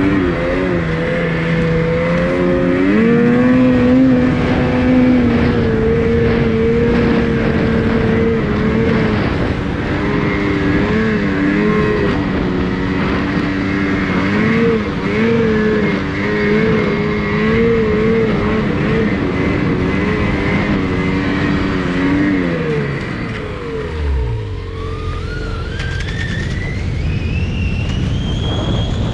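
Snowmobile engine running hard at high, fairly steady revs, its pitch wavering with the throttle, then falling away about three quarters of the way through. Near the end a whine climbs steadily in pitch.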